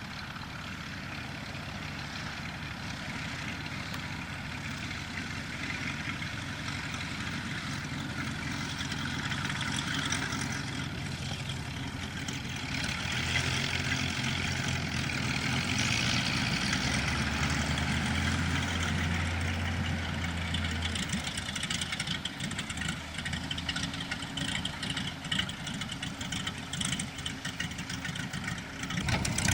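Cessna Agwagon topdressing plane's piston engine running steadily, growing louder around the middle and then easing a little.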